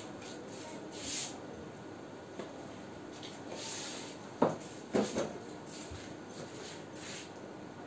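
Quiet room tone with faint rustling, then a sharp knock about four and a half seconds in and two lighter knocks half a second later, like something being handled or set down.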